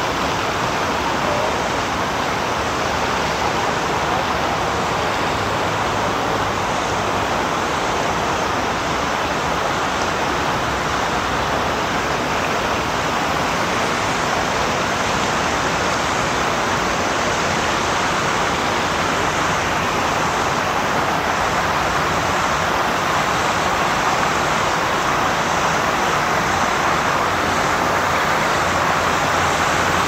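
Steady rushing hiss of fountain jets spraying up from a lake and splashing back onto the water, holding an even level throughout.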